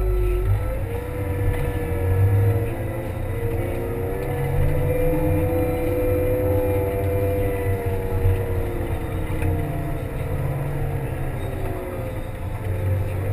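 Kramer 380 compact wheel loader's diesel engine running under load while plowing snow, with a steady low rumble and a whine that rises about a second in, holds, then falls away near the end.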